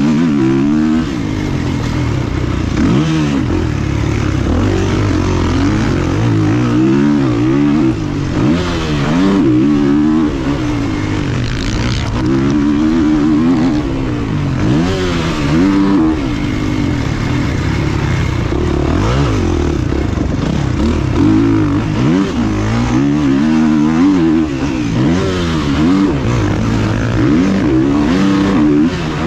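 Motocross dirt bike engines on a track, revving up and down over and over as the throttle is opened and shut, with more than one engine heard at once.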